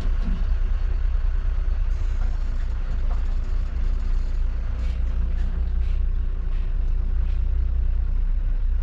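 Volvo B9R bus's diesel engine running at low speed, a steady low rumble heard inside the driver's cab, with a few faint clicks in the second half.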